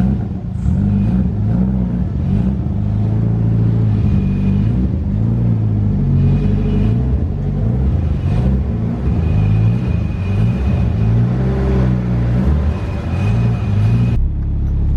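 Nissan S14's SR20 engine running with the newly swapped VG30 transmission, its revs rising and falling repeatedly. It settles abruptly into a steady drone near the end.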